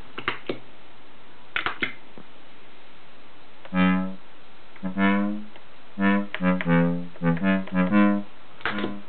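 Roland MC-202 MicroComposer, a monophonic analog synthesizer, playing single notes one at a time from its keyboard. Two held notes about a second apart are followed by a quicker run of short staccato notes. A few small clicks come in the first two seconds.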